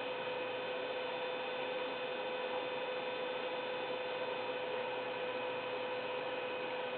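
Steady electrical hum and hiss with a fixed mid-pitched tone, unchanging throughout; no gulps or other separate sounds stand out above it.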